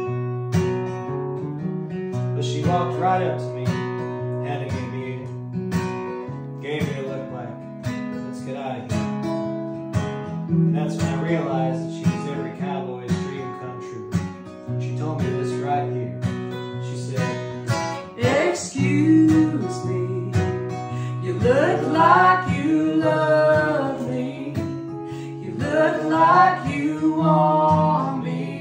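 Two acoustic guitars strumming a country song, with a woman singing over the later part.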